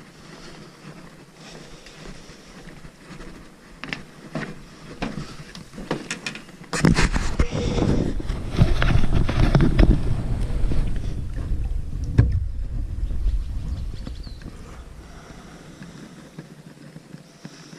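Scattered knocks on a wooden dock, footsteps and handling, then several seconds of heavy low rumbling noise with a sharp knock about twelve seconds in, fading away toward the end.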